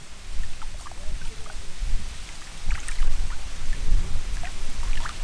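Wind buffeting the microphone, a gusting low rumble, with a few faint short high sounds scattered through it.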